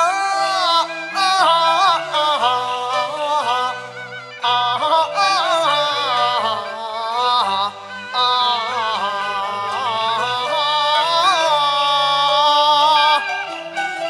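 A male Cantonese opera (yuequ) singer singing a wavering, ornamented melody with strong vibrato, in phrases with short breaks between them. A Chinese instrumental ensemble accompanies him with steady low notes.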